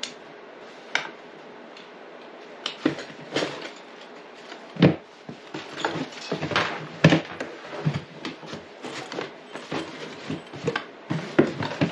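Canvas tool roll packed with metal hand tools being pushed into a plastic Milwaukee Packout rolling tool chest and bags rearranged inside it: irregular clinks and knocks of tools against the plastic, with rustling fabric, the loudest knocks about five and seven seconds in.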